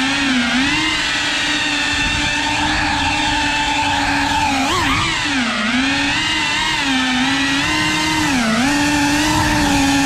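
Cinewhoop FPV quadcopter's motors and ducted propellers whining steadily, the pitch dipping briefly several times as the throttle is eased and brought back.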